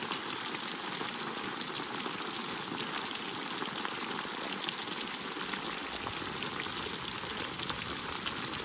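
Steady rain falling, an even hiss scattered with the fine ticks of individual drops striking surfaces.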